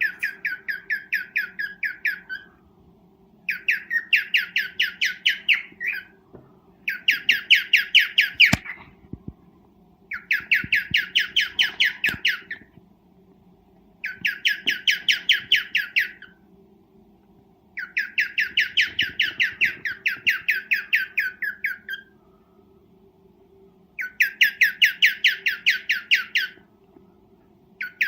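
Cockatiel giving its mating call: bouts of rapid, evenly repeated squawking notes, each bout about two seconds long, with short pauses between them. A faint steady hum runs underneath.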